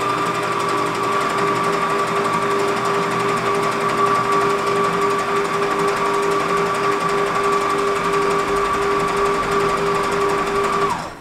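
Bosch OptiMUM kitchen machine's motor running empty, with a steady whine and hum, then winding down and stopping near the end.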